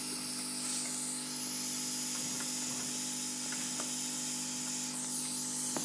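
Solder fume extractor fan running steadily: an airy hiss over a low motor hum, with a couple of faint ticks.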